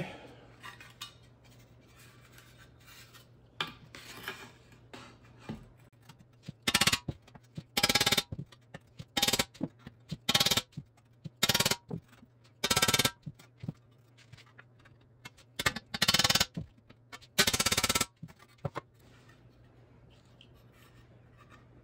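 Bursts of quick metallic tapping, about ten of them over some ten seconds, as a hammer drives a chisel-type dent tool against a bare metal dash capping resting on a small anvil to knock out its dents. Lighter clinks and scrapes of the capping being handled before the tapping starts.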